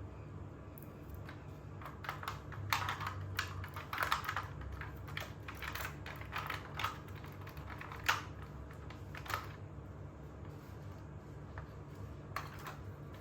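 Irregular plastic clicks and taps, heaviest in the middle stretch and again briefly near the end, from a plastic toy car being handled, over a steady low hum.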